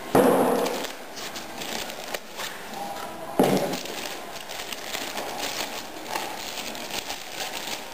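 Packaging being handled while a drive is unpacked. There are two thumps, one near the start and one about three and a half seconds in, then a plastic bag crinkling and rustling in quick crackles.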